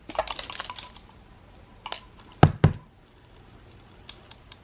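Handling of a ZIENNOQ cordless stick vacuum's opened plastic dust bin: rustling and light plastic clicks, with two sharp knocks about two and a half seconds in.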